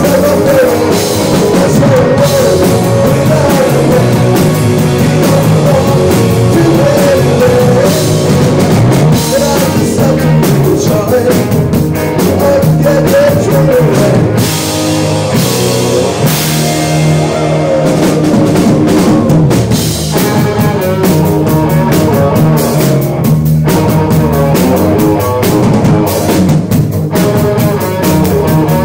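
Live rock band playing loud: electric guitars, electric bass and a drum kit, with a male lead vocal over them.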